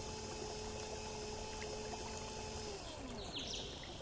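Small 12-volt DC motor running with a steady hum, then winding down with a falling whine about three seconds in as its power is cut.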